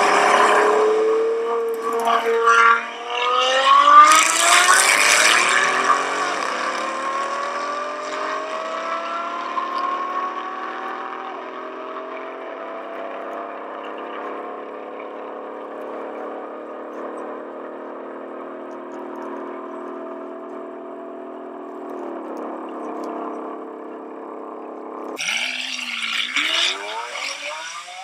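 A supercar's engine accelerating hard, its pitch climbing through the gears, loudest about four seconds in, then settling into a steadier, fainter drone. Near the end another car's engine suddenly revs up sharply.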